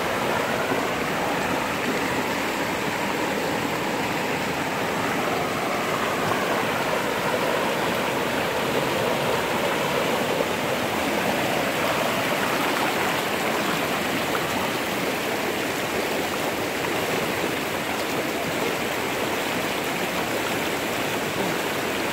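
Rain-swollen, muddy stream in flood rushing and churning over rocks and banks, a steady rush of water.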